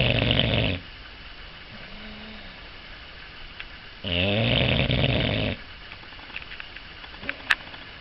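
English bulldog snoring: one long snore tailing off in the first second, then another long snore about four seconds in, each a low rumble with a raspy hiss over it. A short sharp click near the end.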